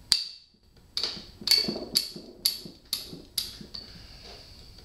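Ratchet wrench with a 6-point socket working on a rusty cylinder head nut. It gives a sharp metallic click with a short ring about twice a second, and the clicks stop a little over three seconds in.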